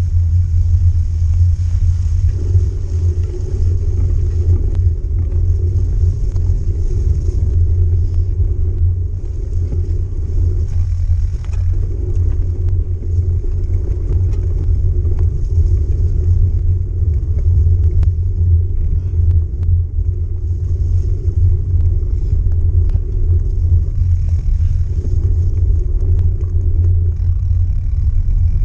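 Heavy wind buffeting on a moving camera's microphone, a steady low rumble, mixed with bike tyres rolling over a muddy, leaf-covered trail.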